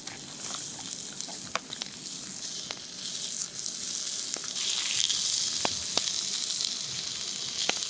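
Two burger patties and onions sizzling in a frying pan over a campfire, a steady hiss dotted with scattered pops. The sizzle grows louder about halfway through.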